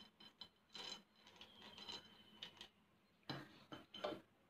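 Faint clicks and rattles of hard, crisp fried macaroni pieces dropping into a steel mixer-grinder jar, with a few louder knocks near the end.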